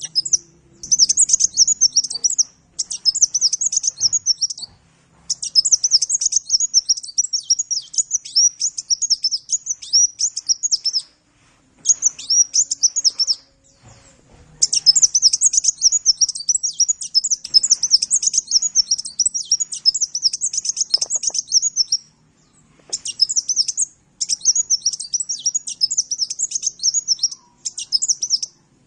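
A sunbird (Indonesian 'kolibri') singing a rapid, high-pitched twittering song in long runs, broken by short pauses about 11, 14, 22 and 28 seconds in.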